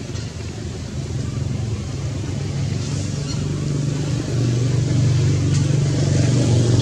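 A motor engine running steadily with a low hum, growing louder about four seconds in.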